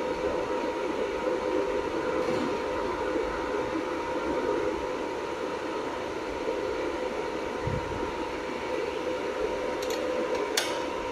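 Jewelry laser welding machine running with its cover open: a steady fan-like hum with a steady tone in it. A sharp click near the end.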